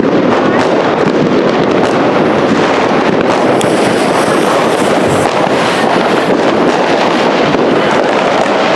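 Two consumer firework cakes, one a silver salute cake, firing together: a loud, dense, unbroken barrage of rapid bangs and crackling.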